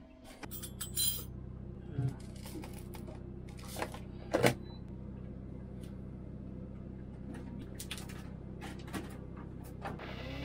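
Air conditioner switched on, starting a steady low hum about half a second in. Over it come scattered clicks and knocks of things being handled, the sharpest about a second in and at about four and a half seconds.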